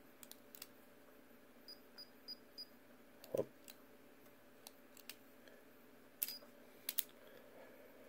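Quiet handling of a small metal fingerprint padlock: scattered light clicks and taps, with sharper clicks near the end as the shackle is released. A few faint, quick high beeps come about two seconds in.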